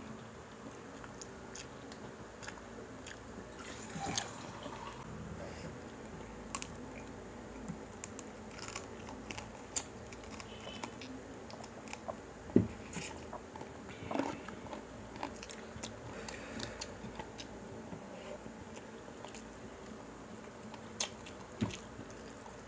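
Close-miked eating: chewing and biting into crispy pata (deep-fried pork knuckle) and rice, with scattered crisp crunches and small clicks, one sharper click about twelve seconds in, over a faint steady hum.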